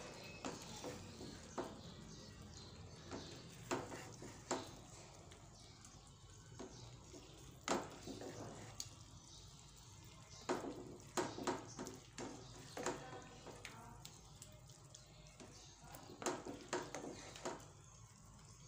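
Spatula scraping and tapping against a nonstick frying pan as cooked potato slices are scooped out into a serving bowl: light, irregular clicks and scrapes over a faint steady background hiss.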